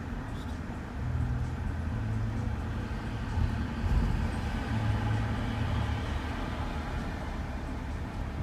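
Shuttle van driving, a steady low rumble of engine and tyre noise that swells and eases a little.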